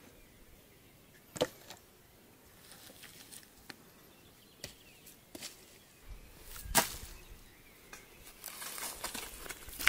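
Wooden logs knocking against each other as firewood is handled on a woodpile: a few separate knocks seconds apart. Near the end, dry brushwood and moss rustle and crackle as they are laid on the pile.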